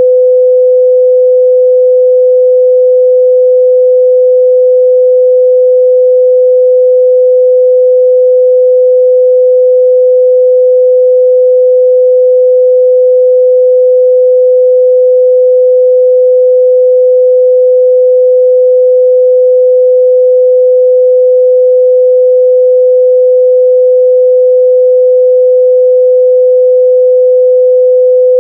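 Continuous 505 Hz sine-wave test tone, steady and loud, a single pure pitch with no change.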